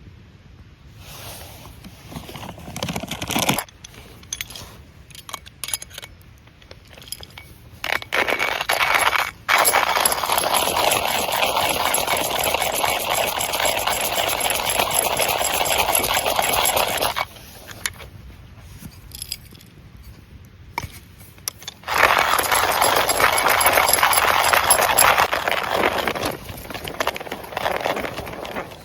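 Rustling and scraping with scattered metallic clinks as things are handled, in two long rustling stretches with short clicks between.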